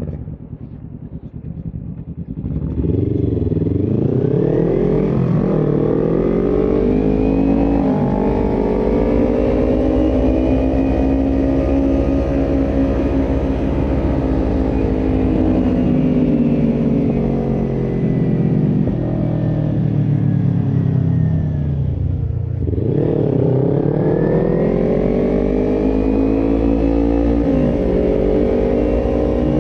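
Small Kawasaki Ninja sport bike's parallel-twin engine pulling away about two and a half seconds in. It then runs loud, revs rising and falling through the gears, eases off sharply around 22 seconds in, and accelerates again.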